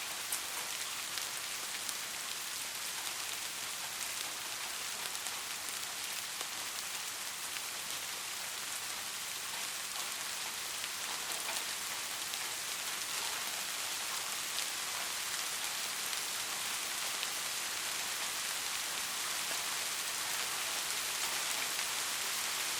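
Steady rain falling, an even hiss of many fine drop ticks with no thunder.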